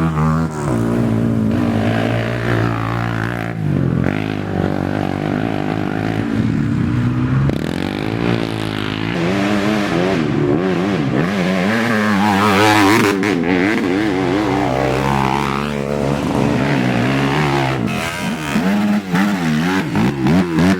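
Several racing ATV engines revving, their pitch rising and falling over and over as the quads accelerate and back off.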